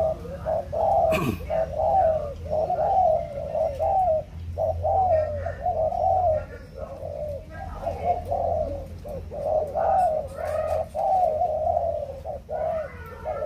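Spotted dove cooing in an unbroken run of short, low coos, bowing as it calls in a bow-coo display. A single sharp click comes about a second in.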